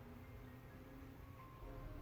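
Faint background music, a soft melody of held notes.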